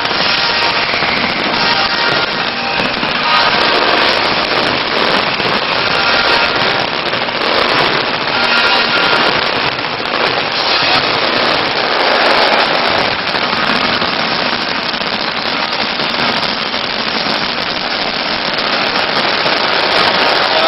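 Fireworks display: many shells and firecrackers bursting and crackling at once in a dense, unbroken barrage.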